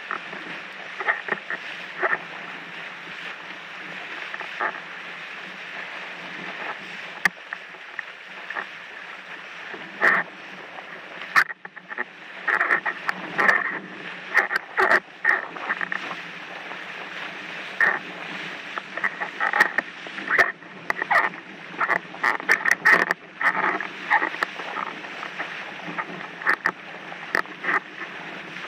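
Windsurf board sailing over choppy water: a steady rush of wind and water with irregular slaps and knocks as the board hits the chop, busiest through the middle.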